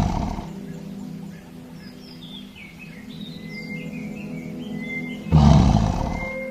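Lions roaring or growling in two loud, sudden blasts that each fade over about a second: one is already fading as the clip opens, the other comes about five seconds in. Under them runs a steady music drone with small high chirps.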